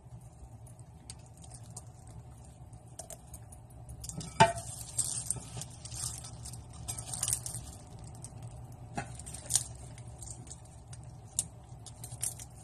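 Hands packing stuffing into a turkey in a roasting pan: soft squishing and rustling, with two sharp knocks against the pan, one about four seconds in and one about nine seconds in, over a steady low hum.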